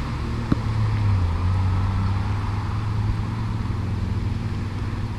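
Tractor engine labouring under load as it struggles over a canal bridge: a steady low drone that eases off slightly toward the end.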